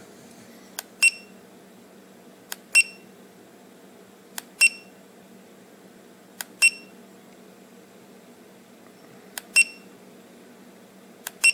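An EEZRV T515 tire pressure monitor's display unit beeping as its buttons are pressed: six times, each a faint click followed by a short, high electronic beep, about every two seconds with a longer gap near the middle. Each beep confirms a button press while the alarm pressure settings are stepped through.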